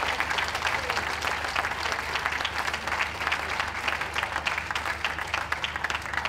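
Audience clapping: a steady round of applause.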